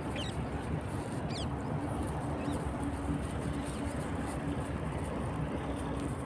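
A few faint, short, high puppy squeaks that fall in pitch, in the first half, over a steady low hum and hiss.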